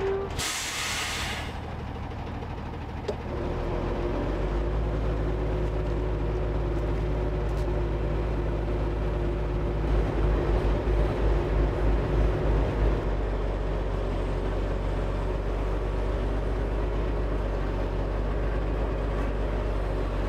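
Diesel engine of a timber truck's hydraulic log crane running steadily, pulsing under load for a few seconds midway, with a brief hiss right at the start.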